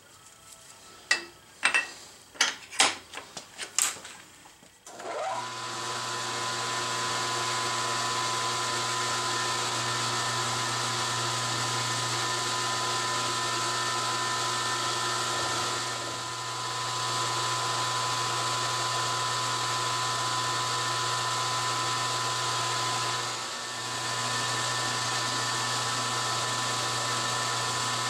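A few sharp clicks and knocks of metal parts at the vise, then about five seconds in a milling machine's spindle spins up and runs steadily with an end mill cutting an aluminum block, the sound dipping briefly twice.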